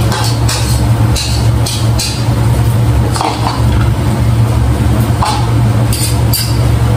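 Spoon scraping food out of a plastic bowl into a frying pan in a series of short strokes, over a loud steady low hum.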